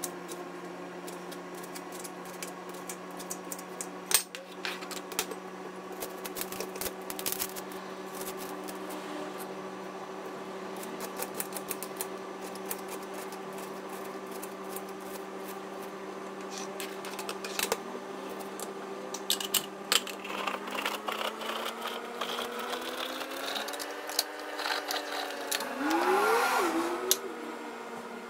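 Kitchen knife slicing and chopping tomato and red onion on a plastic cutting board: irregular quick taps and clicks of the blade striking the board. A steady hum sounds underneath and rises in pitch near the end.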